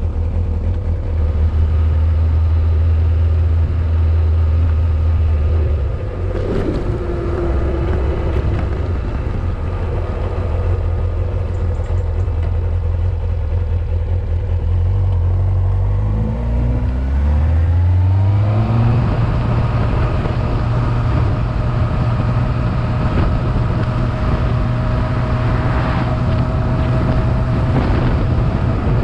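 Motorcycle engine recorded from the bike itself: a steady low note while rolling slowly, then the pitch climbs over about three seconds as the bike accelerates, settling into a steadier, higher note at cruising speed with rushing wind.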